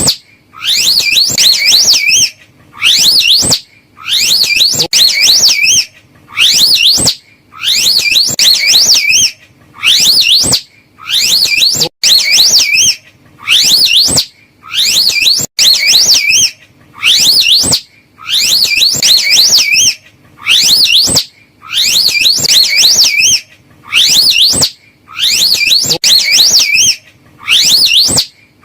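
Slow loris calling: a string of high-pitched, fast-warbling whistled calls, each about a second long, repeating about every one and a half seconds.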